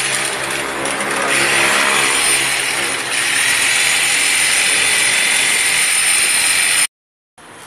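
Electric hand polisher (grinder-type polishing machine) with a wool buffing bonnet running at speed against a flat surface: a steady motor whine with the hiss of the spinning pad. It cuts off suddenly near the end.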